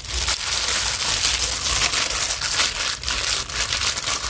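Thin plastic disposable gloves crinkling and rustling as hands squeeze and rub marinade into a boiled pig's head, a continuous rustle of small irregular crackles over a steady low rumble.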